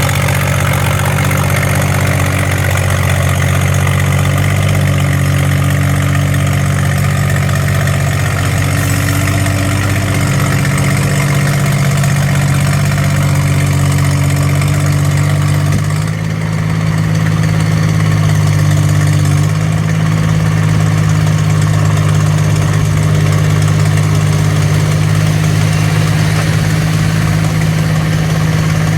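Diesel engine of a Yanmar B15 mini excavator running steadily at a constant speed, with a brief dip in loudness and a slight change in pitch about halfway through.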